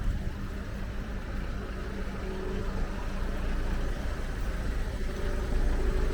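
Town street ambience: a motor vehicle engine running close by, with a heavy low rumble of wind on the microphone.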